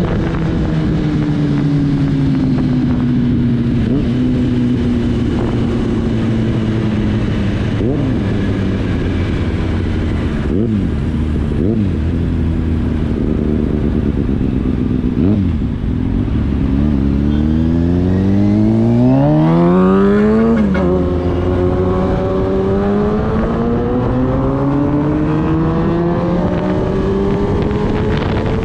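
Kawasaki Ninja ZX-10R's inline-four engine heard from on board while riding. The engine note sinks over the first several seconds, revs up hard about seventeen seconds in, drops sharply at a gear change, then climbs steadily again toward the end.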